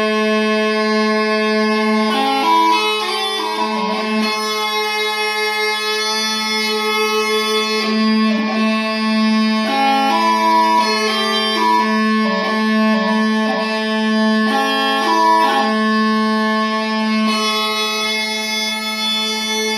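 Mouth-blown Scottish smallpipes playing a tune: the chanter melody moves from note to note, with quick ornamented runs, over the steady hum of the drones.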